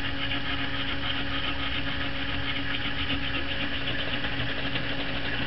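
Emery cloth on a tongue depressor scratching back and forth along the slot edge of a Crosman pump air gun's tube, deburring and rounding the edge. It sounds as a fine, repeated scratching over a steady mechanical hum.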